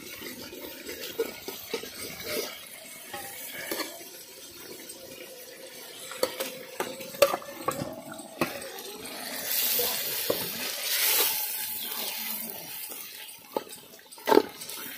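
Raw mutton pieces dropped from a steel bowl into hot oil and masala in an aluminium handi, sizzling, with the sizzle swelling about ten seconds in. A metal spatula scrapes and knocks against the pot; the sharpest knock comes near the end.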